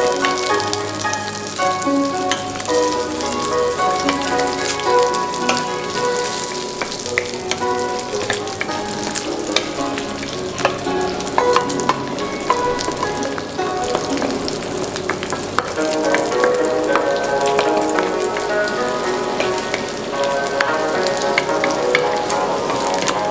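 Food sizzling and crackling in an oiled frying pan as it is stir-fried, with spatula stirring, while a tune plays underneath.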